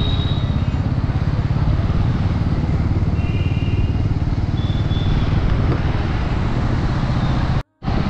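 Ride noise from a moving vehicle in city traffic: a steady low engine drone and wind rumble that flutters quickly. A couple of faint high tones come through about three and five seconds in, and the sound cuts out for an instant near the end.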